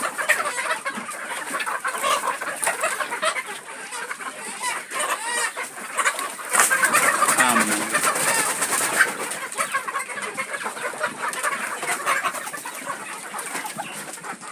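A flock of local village chickens clucking, with many short calls overlapping throughout, busiest about halfway through.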